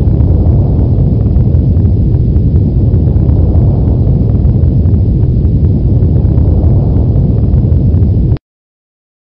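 Earthquake sound effect: a loud, deep, continuous rumble that cuts off abruptly about eight seconds in.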